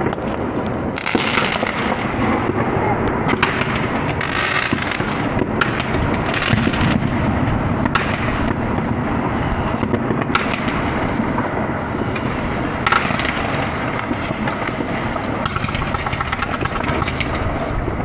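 Fireworks going off: a continuous crackle of pops and bangs, with louder bangs now and then.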